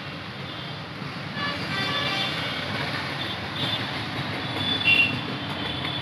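Steady background traffic rumble with several high-pitched tooting tones over it, the loudest a short one about five seconds in.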